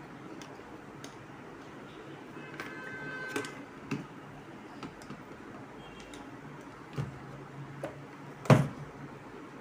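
Handling noise of wiring work: scattered clicks and knocks of a plastic thermostat controller, wires and a screwdriver being moved about, with a brief squeak about three seconds in and one sharp knock about eight and a half seconds in.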